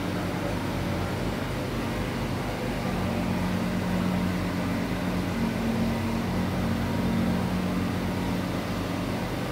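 Steady machine hum with a fast, even low throbbing underneath. A droning tone swells in about three seconds in and fades near the end.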